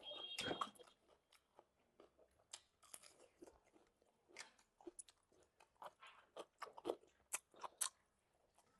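Close-up chewing and mouth sounds of a person eating: irregular small wet clicks and crunches, a little louder about half a second in and again between seven and eight seconds.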